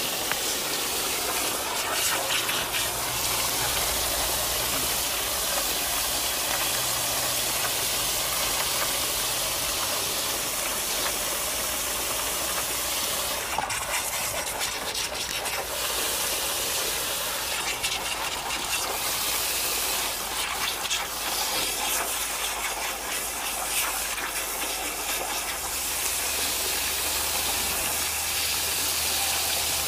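Water jetting from a garden hose spray nozzle into a paddling pool, a steady hiss of spray hitting the water and the plastic liner.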